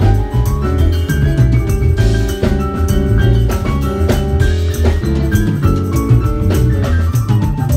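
Live band playing an instrumental passage: electric bass, electric guitar, keyboard and drum kit, with a saxophone.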